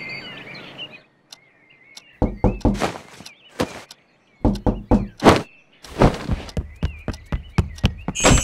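Repeated hard knocking in short bursts of several knocks each, the loudest a little past halfway, with faint birds chirping between them.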